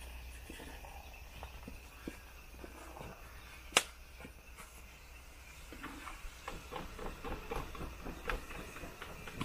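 Faint scattered clicks and knocks from tending an open wood cooking fire and handling cookware, with one sharp crack about four seconds in and a run of small clicks over the last few seconds.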